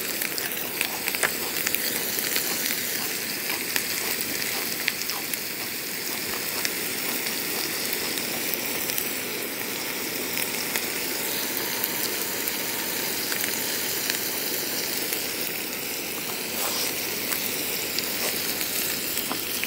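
Pork belly sizzling steadily on a grill pan over a portable butane stove, with many small pops and crackles from the fat.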